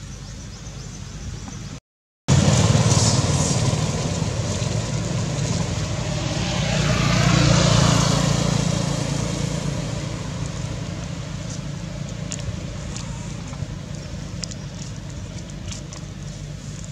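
A motor vehicle passing by outdoors. The sound drops out to silence for a moment about two seconds in, then comes back loud. It swells to a peak near the middle with a falling pitch as it goes past, and fades away after that.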